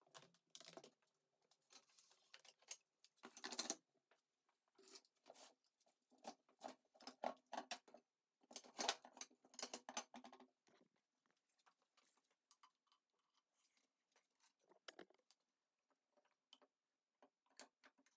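Steel pipes being handled on a workbench, with intermittent clinks, knocks and scrapes as they are moved against each other; the noises are sparse and fainter near the end. A window handle is turned at the very start.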